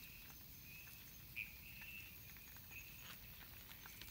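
Small kindling fire of split wood and feather sticks burning, with faint crackling and occasional sharp pops, over faint, intermittent insect chirping.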